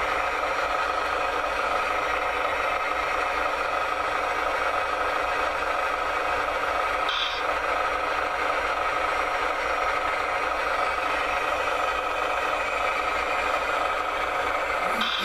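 Radio-controlled construction model's electric drive running with a steady whir, with one short click about seven seconds in.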